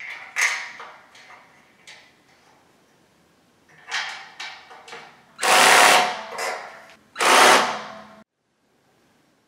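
Metal clicks and knocks as a bolt and the steel rail are fitted at the bed frame's corner joint, then a power drill with a hex bit runs in two short bursts, each about a second long, driving the bolt in. The sound cuts off suddenly a little after the second burst.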